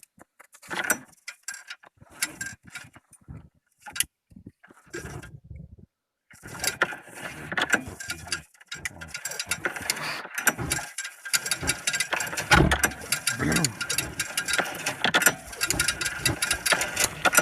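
A small petrol engine being pull-started with its recoil starter: ratcheting rasps, then a stretch of rhythmic clatter as it turns over without catching. It is hard-starting; the spark plug is suspected of being wet.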